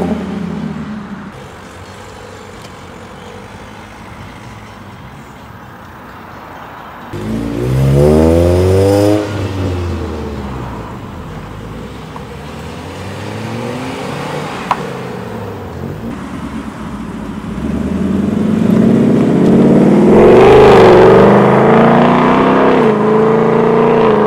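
Car engines revving and cars driving past. A loud rev rises and falls about seven seconds in, and another engine builds up louder, stepping up in pitch, over the last several seconds.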